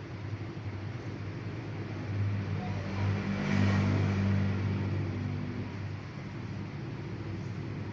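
A low, steady motor hum that grows louder for a couple of seconds, about three seconds in, and then fades back: a motor vehicle going past.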